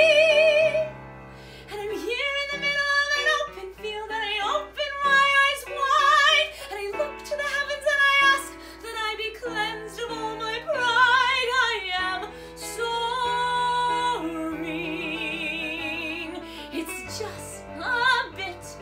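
A woman singing a musical-theatre ballad in a trained voice with vibrato, holding long notes, over a soft instrumental accompaniment. A long high note ends about a second in.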